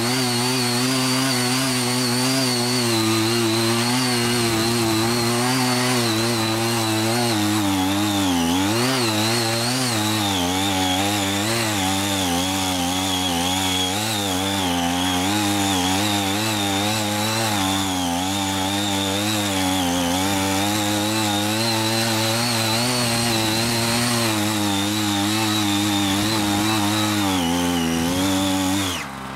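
Small petrol engine of a CY50 mini tiller running at high revs while its VB43 rotary tilling blades work the soil, the pitch wavering and dipping under load. Near the end the engine drops back to idle.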